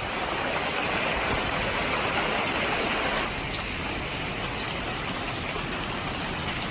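Heavy rain pouring down in a storm, a steady dense hiss that drops slightly in level about three seconds in.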